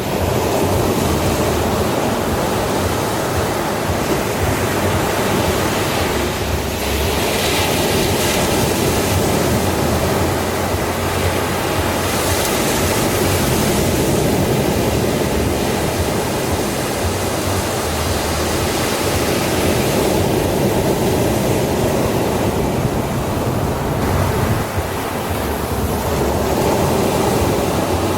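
Ocean waves breaking and washing ashore, a continuous rushing hiss that swells as each wave breaks.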